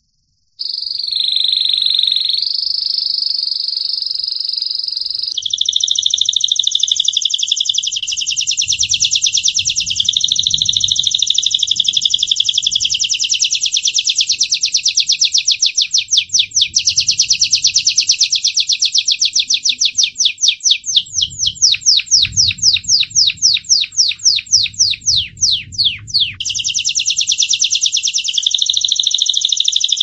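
Gloster canary singing one continuous song, starting about half a second in. It opens with clear held whistled notes, moves into fast rolling trills, then slows to a rattle of separate sharp notes about four a second, and picks up a fast trill again near the end.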